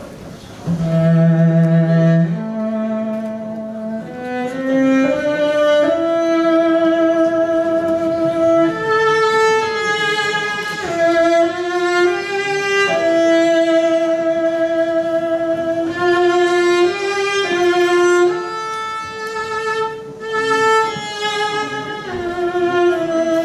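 A slow melody played on bowed strings, violin and cello, in long held notes that step up and down, often with two lines sounding together.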